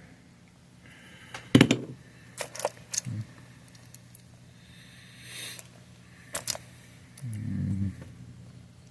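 Scattered clicks and taps of small tools and parts being handled at a workbench, the loudest a sharp knock about a second and a half in, over a faint steady hum.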